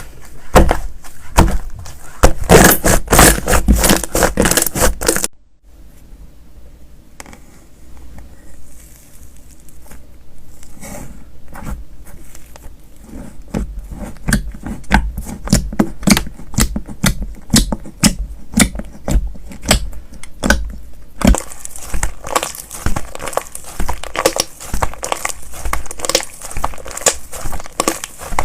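Slime being squeezed, poked and stretched by hand, giving rapid crisp crackling and popping clicks. The crackling drops to a quieter, sparser run about five seconds in and grows loud and dense again after about twenty seconds.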